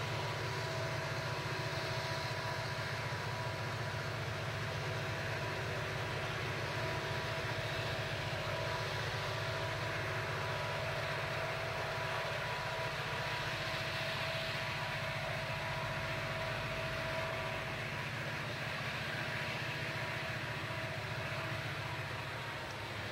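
Diesel freight locomotives running past under power: a steady low engine drone with a high, even whine on top and the rumble of the train on the rails.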